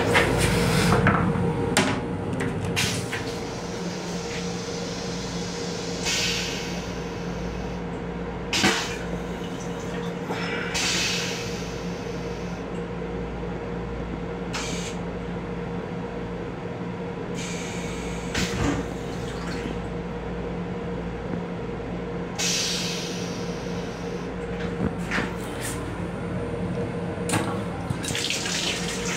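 Steady hum inside an M7 commuter railcar restroom, with a loud rush in the first second. Short hissing bursts and knocks come every few seconds. Near the end the sink faucet runs, water splashing into the basin.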